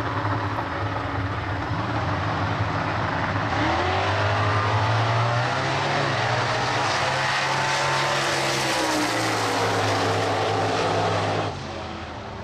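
Outlaw Radial Ford Cortina drag car's engine at full throttle during a quarter-mile pass, its pitch climbing and then falling away through the middle of the run. The sound stops abruptly near the end.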